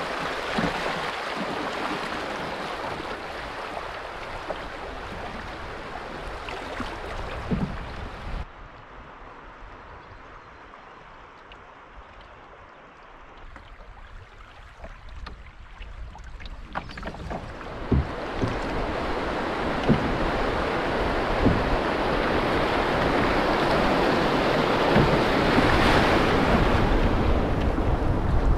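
River water rushing and splashing around a paddled canoe, with wind rumbling on the microphone and a few sharp knocks. The water drops abruptly quieter about eight seconds in, then builds again from about eighteen seconds to a steady rush as the canoe runs through fast, choppy shallow water.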